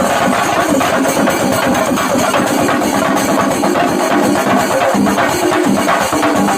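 Chenda melam: Kerala chenda drums beaten with sticks in a loud, dense, unbroken stream of fast strokes.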